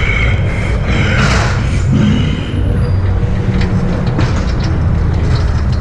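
Ghost train car running along its track in the dark: a loud, steady low rumble with scattered clicks and rattles, and a few brief higher-pitched sounds in the first second and a half.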